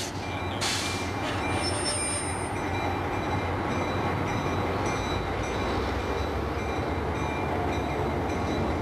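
EMD NW5 diesel switcher locomotive running with its passenger train: a steady low engine rumble with a faint, thin high-pitched wheel squeal over it. A brief hiss comes about a second in.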